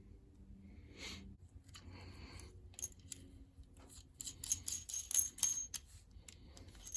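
Small metal tools and parts being handled: scattered clicks, then a run of light metallic clinks with a high ring about four to six seconds in.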